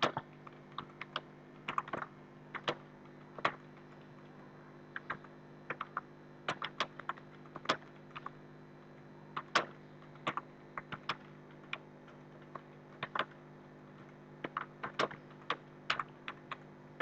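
Computer keyboard being typed on at an uneven pace during a timed typing test: a few keystrokes a second in short runs, broken by brief pauses. A faint steady hum runs underneath.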